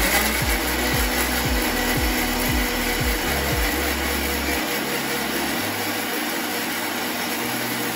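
Electric mixer grinder (mixie) running steadily, grinding carrot, tomato, green chillies and garlic in its jar with the lid held down by hand.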